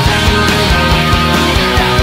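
Background rock music in an instrumental passage, with a steady drum beat of about four strokes a second under sustained chords and a wavering lead line.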